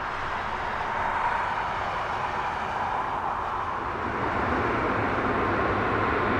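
Jet airliner engine noise: a steady, even rush that grows slightly louder and fuller in the low end about four seconds in.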